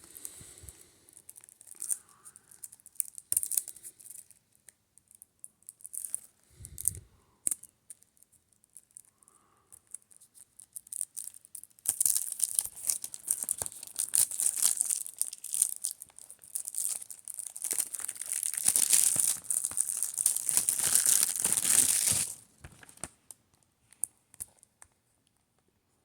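Plastic wrapping being torn and crinkled off a CD case: scattered crinkles and clicks at first, then about ten seconds of dense crackling and tearing that stops fairly suddenly.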